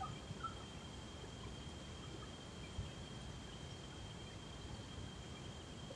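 Faint outdoor ambience: a low steady rumble under a thin, steady high-pitched tone, with a few short bird chirps in the first half second.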